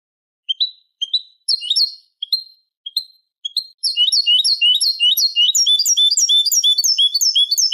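European goldfinch song from a tutor recording for young goldfinches and hybrids: a few separate, sharply rising call notes about half a second apart, then from about four seconds a fast, continuous run of repeated high twittering notes.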